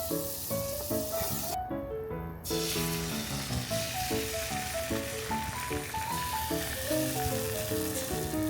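Food sizzling in a frying pan, a steady hissing that drops out for under a second about two seconds in, under a light melodic background music track.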